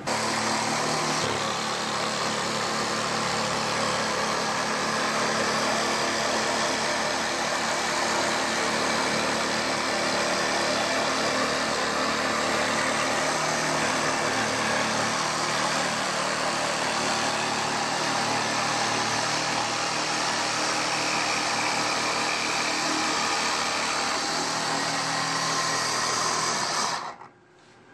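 Milwaukee M18 Hackzall reciprocating saw, mounted under a table as a scroll saw, running steadily while its blade cuts a curve through a thin white board. The saw stops suddenly near the end.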